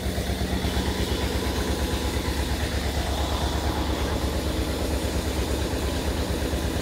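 An engine idling, a steady low throb with an even rapid pulse.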